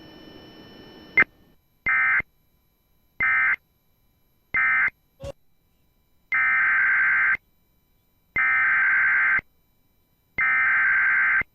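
NOAA Weather Radio SAME data bursts: three short, harsh buzzing bursts of the end-of-message code, then a click and three longer, evenly spaced bursts of the next alert's header. A low steady hum of the broadcast runs under the first second and cuts off with a click.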